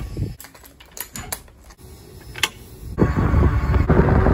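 A few sharp clicks and knocks from a door being handled, then, about three seconds in, a loud, fluctuating low rushing noise that stays to the end.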